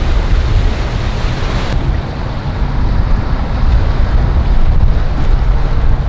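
Strong wind buffeting the microphone: a loud, steady low rumble, with the wash of choppy water beneath it.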